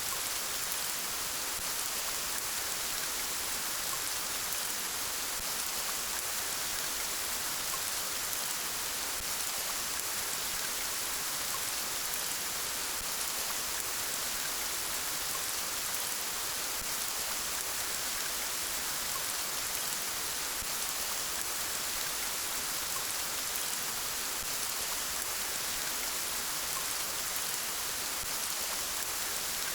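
Steady rainfall: an even, unbroken hiss of rain pattering on a surface, with no thunder or gusts.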